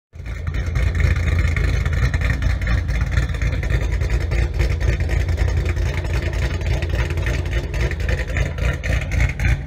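An engine running loud and deep, its sound mostly a low rumble, with a steady rough texture and no clear change in pitch.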